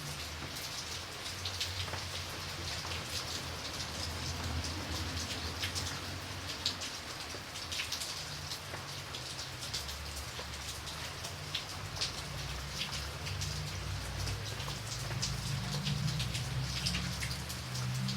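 Steady rain with a dense patter of individual drops striking a surface, over a low rumble that swells near the end.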